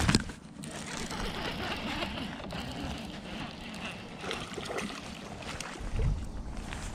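Baitcasting reel being cranked to retrieve a lure, a steady whirr with small ticks, after a sharp knock at the start; a low thump comes about six seconds in.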